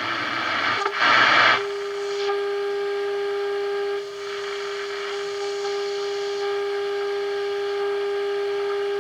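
1948 Emerson model 543 AA5 tube radio's speaker giving static hiss with a loud rush of noise about a second in, then a steady test tone from the signal generator that holds to the end, dipping briefly about four seconds in: the radio is picking up the generator's modulated signal around 1425 kc during IF/RF alignment.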